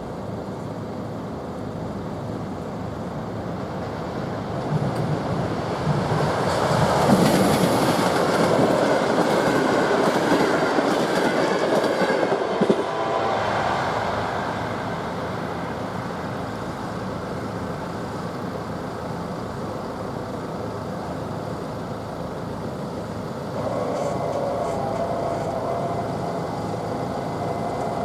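A train passing over a level crossing, its wheels rattling on the rails; it grows loudest from about five seconds in, peaks for several seconds, then eases off. Near the end a second steady sound with a few held tones joins in.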